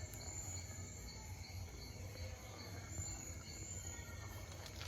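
Crickets chirping steadily in several high, even trills, over a low steady hum.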